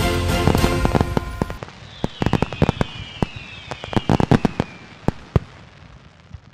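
Fireworks bursting: a run of sharp bangs and crackles with a falling whistle, over the tail of music that stops about a second and a half in. The crackles thin out and fade near the end.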